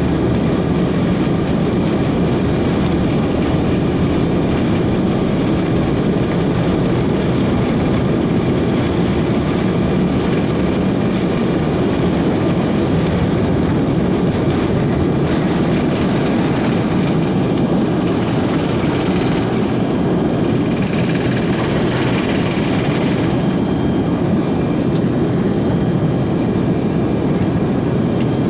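Steady in-flight cabin noise of an Airbus A340-600 airliner: a constant low rush of airflow and its four Rolls-Royce Trent 500 engines, heard from inside the cabin.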